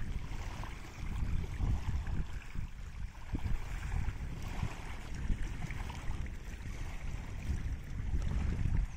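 Wind noise on the microphone, an uneven low rumble, with small waves lapping at the water's edge.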